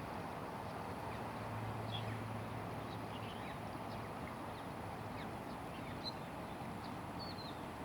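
Steady outdoor background noise with faint, scattered bird chirps and a faint low hum early on.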